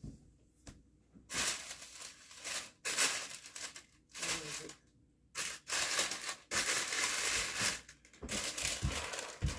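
Rustling and crinkling, as of plastic or paper being handled and moved around, in several bursts a second or two long with short pauses between.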